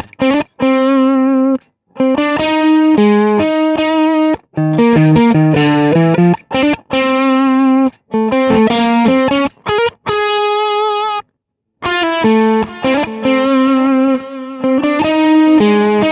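Electric guitar, a Fender Stratocaster, playing a crunchy overdriven lead through a Kemper profile of a 1962 Fender Showman amp pushed by an Ibanez TS9 overdrive. It plays held notes and short phrases, some with vibrato, with brief pauses between phrases. It is heard dry at first, and with effects added by the end.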